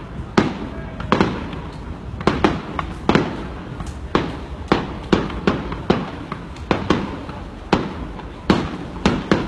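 Fireworks bursting in a continuous string of sharp bangs, about one to two a second at irregular spacing, each trailing off briefly.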